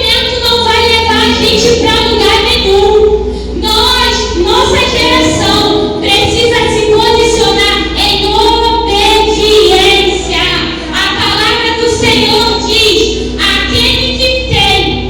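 A child singing a song in sustained phrases, with a steady low musical backing.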